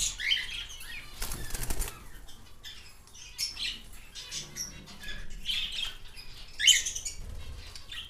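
White-faced cockatiels flapping their wings in a wire cage, with a flurry of wingbeats about a second in, and short chirping calls several times, the loudest near the end.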